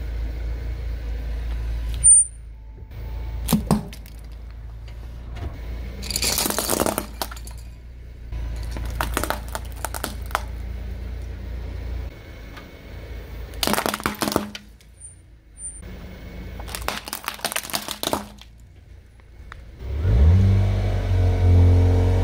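Car engine idling low while its tyre rolls over coloured crayons and pencils, which snap and crack in several sharp clusters. Near the end the engine revs up hard, its pitch rising.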